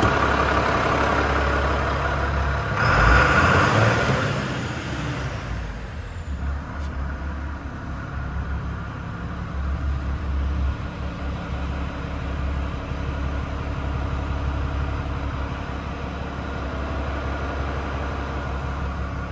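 Iveco Stralis 460 tractor unit's six-cylinder diesel engine idling steadily. About three seconds in there is a louder, noisier patch that dies back down by around five to six seconds.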